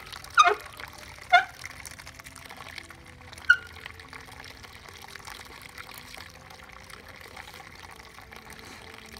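Fresh-pressed apple juice trickling steadily from a basket cider press into a steel pot. Three short, sharp squeaks that fall in pitch cut through it in the first few seconds.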